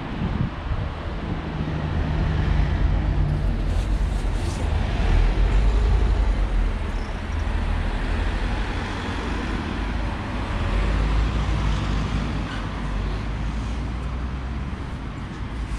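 Road traffic: a motor vehicle's engine running past with a continuous low rumble, swelling to its loudest about five seconds in and then easing.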